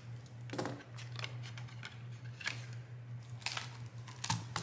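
Paper rustling and a few light taps and clicks as a sticky note and a paper planner are handled on a desktop, over a steady low hum.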